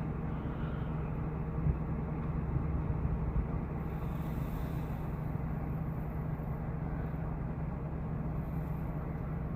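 A car's engine idling, a steady low hum heard from inside the cabin.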